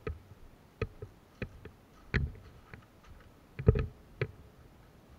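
Footsteps on grass and pine-needle ground with clicks and knocks of the player's gear: about seven irregular steps, the loudest thump a little past the middle.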